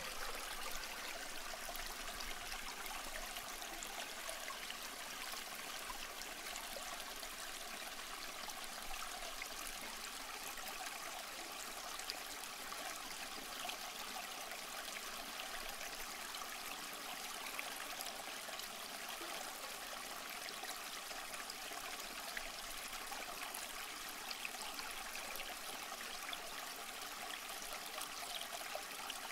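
Aquarium water trickling steadily, with a fine, even splashing hiss.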